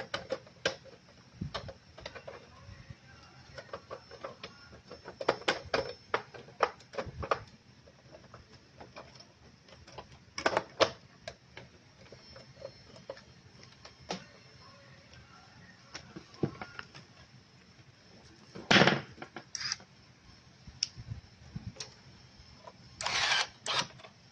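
Irregular clicks, taps and light knocks of hands handling wires, a connector and plastic and metal parts inside an opened LCD projector, with a few louder clatters about ten seconds in, near nineteen seconds and near the end.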